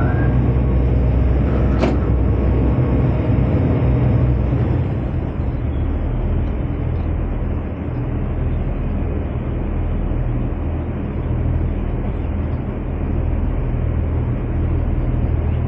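Steady low engine drone with a noisy rumble over it, easing slightly a few seconds in, and one short sharp click about two seconds in.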